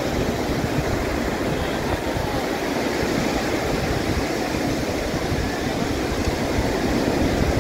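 Steady wash of surf on a sandy beach, with an irregular low rumble underneath.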